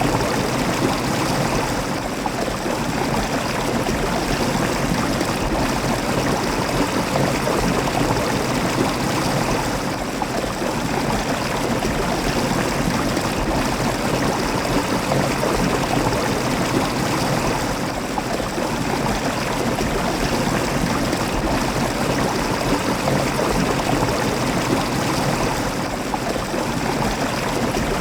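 Running water rushing steadily, like a stream or river.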